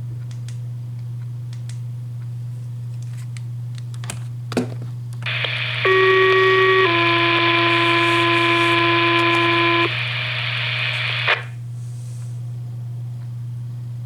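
Two-tone fire-dispatch paging alert over a radio scanner. About five seconds in, static opens; a steady tone sounds for about a second, then a slightly lower tone holds for about three seconds. The static runs on briefly and cuts off with a squelch click, over a steady low hum.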